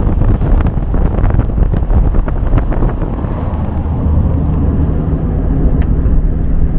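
Volkswagen Kombi van driving on the road: engine running with tyre and road rumble. There is a spell of clicks and rattles over the first three seconds, and it then settles into a steady engine hum.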